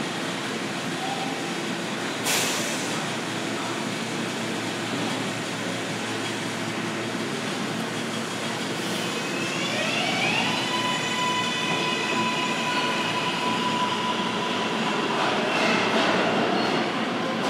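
New York City subway train pulling out, with a steady rumble. About ten seconds in, its electric traction motors give a rising whine in several tones that levels off into a steady tone. There is a sharp clank about two seconds in.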